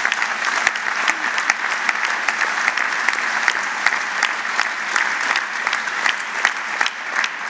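A large seated audience applauding: dense, steady clapping with many sharp individual claps.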